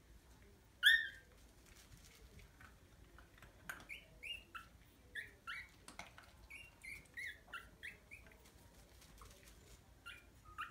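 Maltese puppies squeaking: one loud squeak about a second in, then a run of short high squeaks, a few a second, and a couple more near the end.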